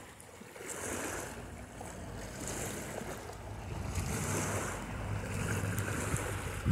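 Small sea waves washing against a rocky shore, with wind rumbling on the microphone; the wash swells and eases every second or two.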